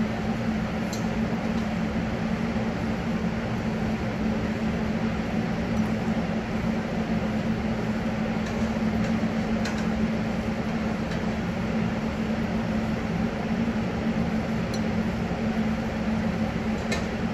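Steady kitchen machinery hum, a low drone with a hiss over it, with a few faint clinks scattered through.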